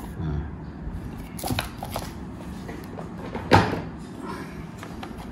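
Handling noise from a precision screwdriver kit and its cardboard box: a few light clicks and taps, with one louder knock about two-thirds of the way in.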